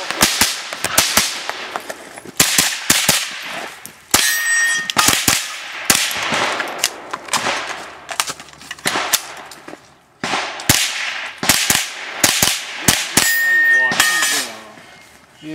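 GSG-5 .22 LR rifle fired in quick strings of shots, with steel plate targets clanging and ringing as they are hit. There are brief pauses about four seconds in and again about ten seconds in.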